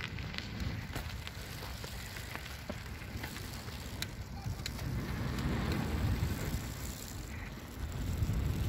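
Wind rumbling on the microphone, with scattered light clicks and ticks.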